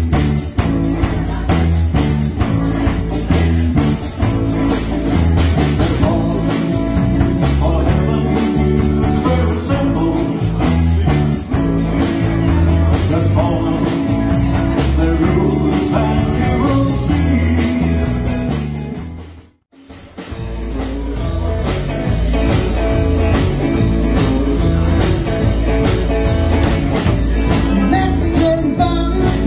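Rock and roll band music in fifties style, guitar to the fore, with no clear lyrics. About twenty seconds in it cuts out for a moment, then the music resumes with a steady beat.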